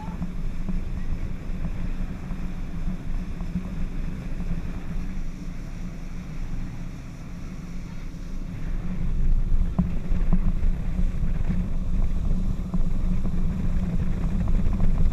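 Motorboat running at towing speed, its outboard engine's drone mixed with wind buffeting the microphone and water rushing past the hull; it gets louder about nine seconds in.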